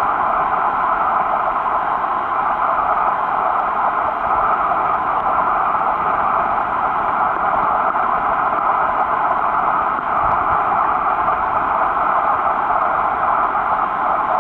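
Steady, even hiss of underwater noise heard through a camera's waterproof housing, with no separate clicks or knocks.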